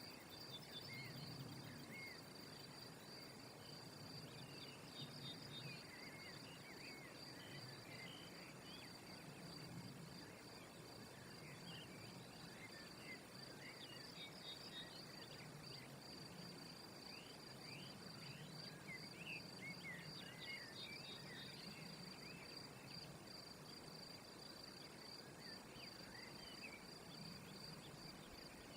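Faint outdoor ambience: an insect's steady high trill, with many short, thin bird chirps scattered through the middle stretch.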